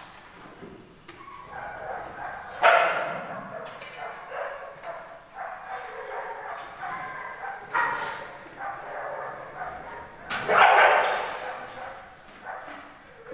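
Dogs barking and yipping over and over, with the loudest barks about three, eight and eleven seconds in.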